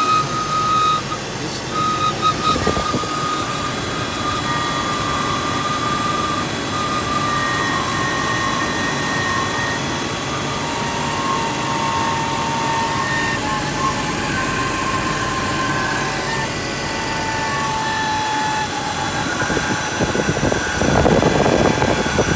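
2002 BMW 325Ci (E46) 2.5-litre inline-six idling steadily, with faint whistling tones over it that wander in pitch and a brief louder surge near the end. It is making a weird noise that the owner suspects comes from the VANOS variable valve timing unit.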